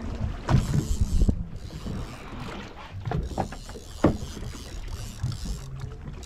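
Irregular knocks and clunks aboard a fishing boat at sea, over a steady wash of wind and water noise.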